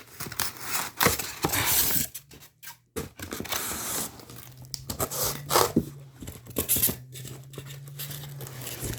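Packing material being pulled out and torn by hand: irregular rustling, scraping and tearing, with sharper crackles about a second in and again around six seconds.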